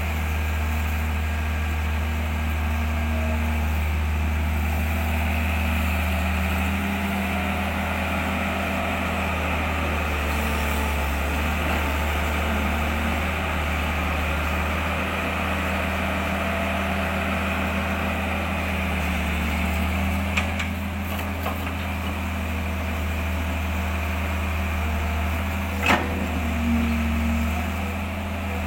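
A vehicle engine running steadily, with one sharp click near the end.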